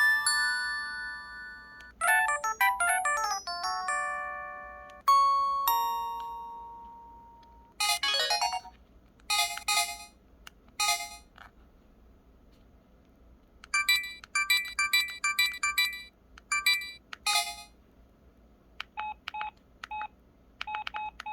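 Pantech SKY IM-S480 mobile phone playing its notification tones through its small speaker, one short electronic melody after another with pauses between: chiming phrases, a rising arpeggio, long decaying single notes and quick beeps. These are its missed-call alert tones, with the text-message alerts beginning near the end.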